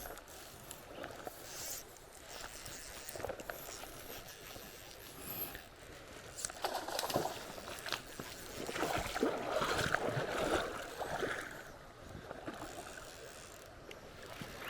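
Creek water splashing and sloshing while a hooked brown trout is played and brought in. It gets louder about seven to eleven seconds in.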